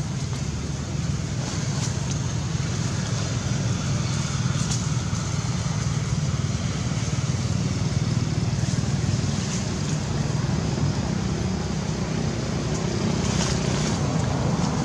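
Steady low rumble of outdoor background noise with a hiss above it, and a few faint clicks.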